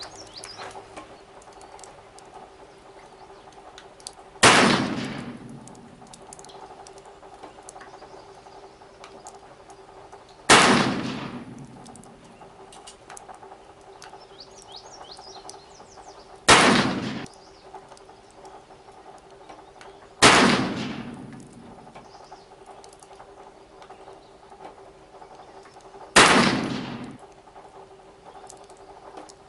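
Five shots from a Pietta 1858 .44 black-powder cap-and-ball revolver, a few seconds apart, each a sharp crack with an echoing tail of about a second. A steady low hum runs underneath.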